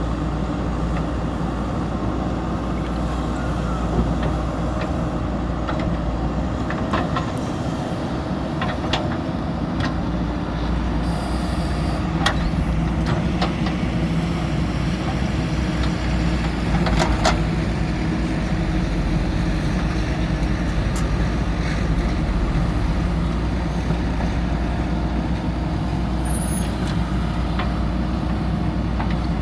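JCB backhoe loader's diesel engine running steadily under work, with a few short knocks and clanks from the machine.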